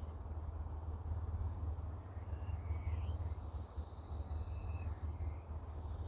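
Small birds singing, short high chirps and a warbling phrase starting about two seconds in, over a steady low rumble.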